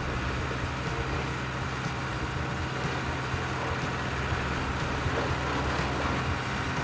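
Steady low engine rumble of a heavy vehicle running without change.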